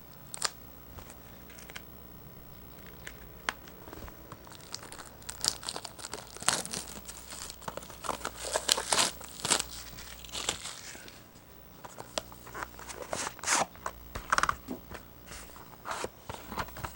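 Plastic shrink wrap being torn open and crinkled by hand as a sealed trading card box is unwrapped, in irregular bursts of crackling and ripping with a short lull about two-thirds of the way through.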